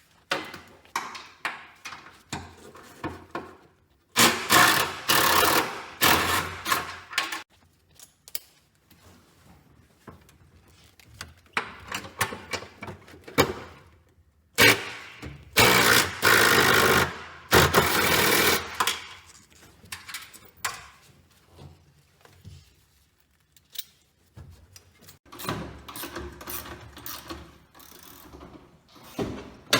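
A power tool runs in two bursts of a few seconds each, a fast, rattling mechanical run, with shorter clicks and knocks between them, as the racing seat's mounting bolts are undone.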